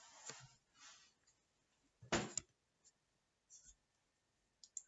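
Quiet room with a few brief faint clicks and rustles, the loudest a short rustle about two seconds in.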